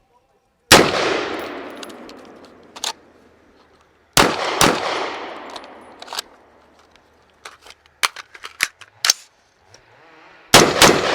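Gunfire in a timed rifle-pistol-rifle transition drill: a shot about a second in that echoes away slowly, a quick pair around four seconds, a run of lighter sharp cracks between about seven and a half and nine seconds, and another close pair near the end.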